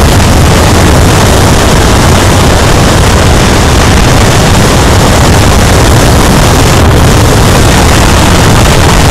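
Motorcycle riding at highway speed: loud, steady wind rush over the bike-mounted camera's microphone, mixed with the low drone of the engine.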